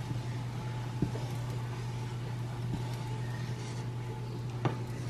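A pot of soup beans foaming and fizzing after baking soda is stirred in, as a wooden spoon stirs it, with two light knocks of the spoon against the pot, about a second in and near the end. A steady low hum runs underneath.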